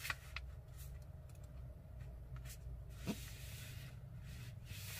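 Faint rustling and creasing of a sheet of paper as it is folded and pressed flat by hand on a tabletop, with a few soft taps, over a steady low hum.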